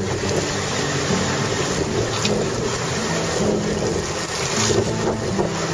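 Steady rushing and hissing of sea water and wind as a Farrier F9AX sailing trimaran moves through the water, over low background music.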